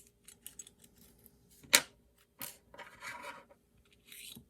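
Small handling sounds of a bolt-action pen being taken apart: a sharp click a little under two seconds in, a lighter click, then scratchy rubbing of the parts.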